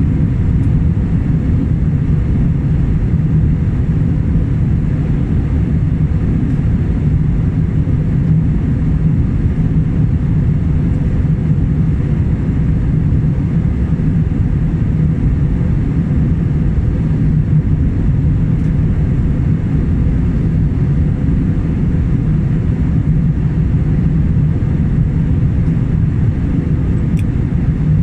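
Steady cabin drone of a jet airliner in flight, engine and airflow noise heard from inside the cabin, a deep, even rumble.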